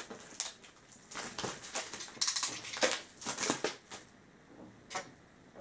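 Utility knife slicing open a cardboard parcel's packaging: irregular scratching clicks and rasps, with a louder tearing rip about two seconds in. Near the end it goes quieter, with a single sharp click.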